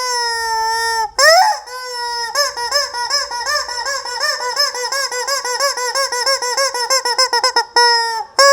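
Rubber squeaky chicken toy squawking: a couple of long squeals, then a rapid run of short squeaks that speeds up, and another long squeal near the end.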